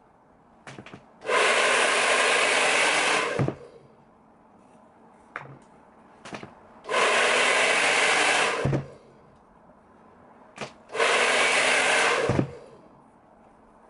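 Handheld hair dryer blowing in three bursts of about one and a half to two seconds each, switched off in between, with a few light clicks in the quiet gaps.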